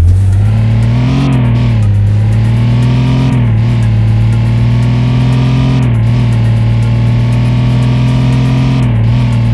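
Music with a sustained, distorted electric guitar note that bends briefly every few seconds.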